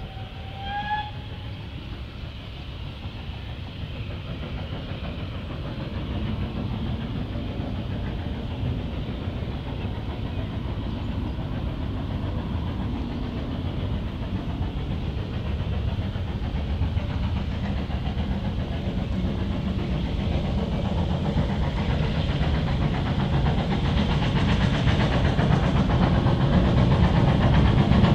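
GWR Manor-class 4-6-0 steam locomotive 7820 working hard under load with a train of coaches, its exhaust growing steadily louder as it approaches. A short rising call sounds about a second in.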